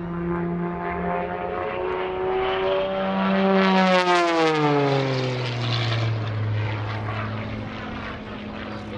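MXS single-engine aerobatic plane's piston engine and propeller at full power on a low pass. It grows louder as the plane approaches, then the pitch drops sharply as it goes by about four seconds in, and it settles to a lower, steady drone as the plane climbs away.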